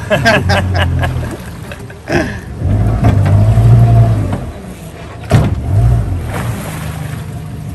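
Honda 90 hp four-stroke outboard motor running, throttled up about three seconds in and again a little after five seconds, then settling to a steady lower run.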